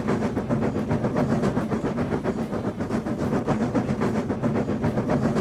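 Cartoon train sound effect: a train running with a steady low hum and a fast, even clatter.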